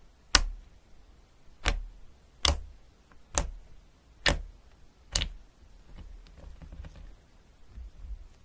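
A series of six sharp taps, about one a second, then faint small knocks near the end.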